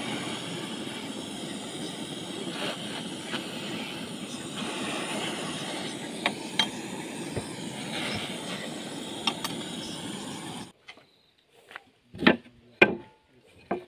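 Canister gas blowtorch running steadily as it heats a small steel spade blade held in pliers, with a few light metal clinks. It cuts off about three quarters through, and two sharp knocks follow.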